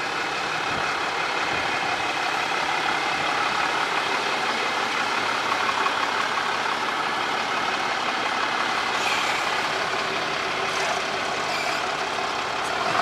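Ram 3500 pickup's 6.7-litre Cummins turbo-diesel engine running steadily as the truck drives slowly out of a garage and across the lot.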